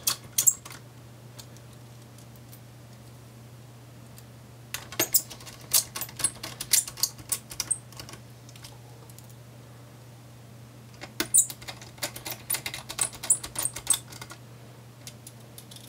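Small Phillips screwdriver driving the heatsink screws back into an Acer Aspire 5 A514-54 laptop: two runs of rapid light clicks and ticks, each a few seconds long, over a steady low hum.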